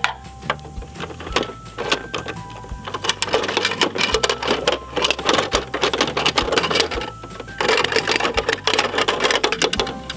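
Rapid plastic clicking and ratcheting from a Bruder toy recycling truck's side-loader arm, worked by hand to lift a toy bin. It comes in two long runs with a short pause between them.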